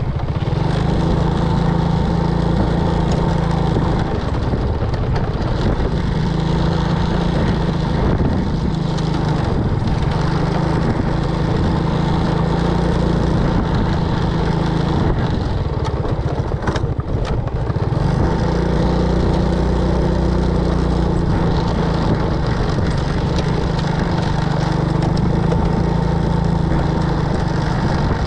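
Small engine running steadily for the whole stretch, its hum swelling and easing at times, with a brief drop about seventeen seconds in.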